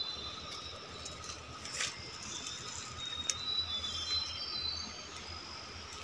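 Forest ambience: a bird gives short, high whistled notes in a few quick stepping series. Two sharp clicks sound about two and three seconds in.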